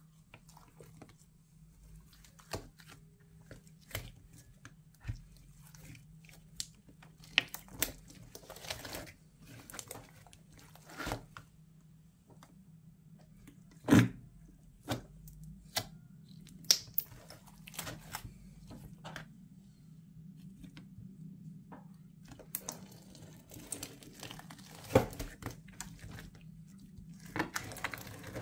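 A cutter slicing and pressing through a thick lump of black glitter slime: irregular sticky crackles, clicks and small pops, with a few sharper snaps about halfway through and again near the end.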